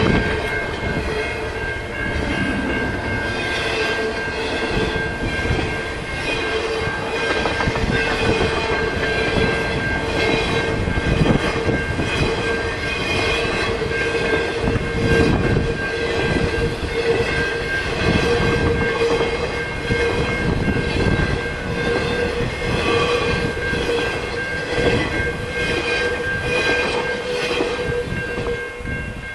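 Double-stack intermodal freight cars rolling past at speed over a grade crossing, wheels clattering, with steady ringing tones underneath; the noise eases as the last car clears near the end.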